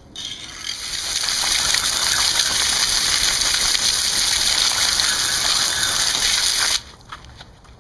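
A jet of water from a hose hitting a cast iron muffin pan, rinsing off the old seasoning and grime loosened by electrolysis. The spray runs steadily and cuts off suddenly near the end.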